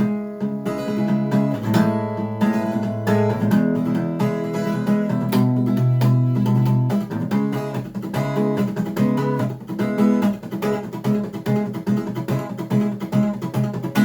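Acoustic guitar playing an instrumental piece, with a quick run of plucked notes and chords over low sustained bass notes.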